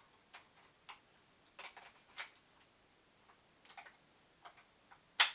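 Irregular small plastic clicks and taps from batteries being handled and fitted into a battery holder, with the sharpest click just after five seconds.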